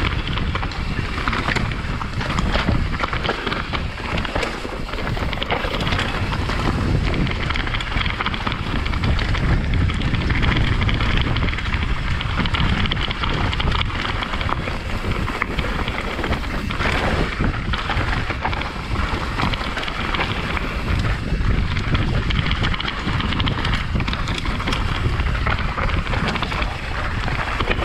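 Wind rushing over a helmet-mounted camera's microphone during a fast mountain-bike descent, mixed with the constant clatter and rattle of an NS Define enduro bike's tyres and frame over a rough trail.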